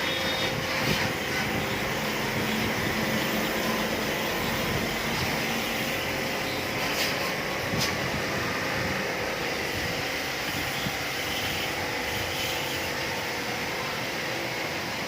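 LG air conditioner running with a steady whir and a constant hum.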